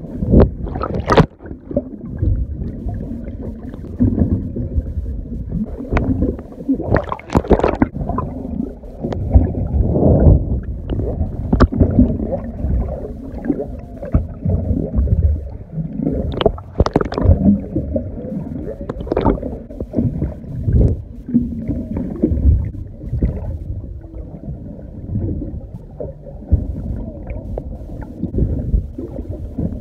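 Low, churning underwater noise, wavering throughout, with a few sharp clicks scattered through it.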